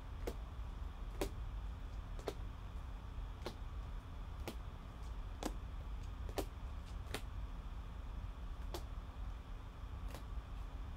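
Rigid plastic toploaders holding baseball cards being set down on a table one after another, a sharp click about once a second, over a low steady hum.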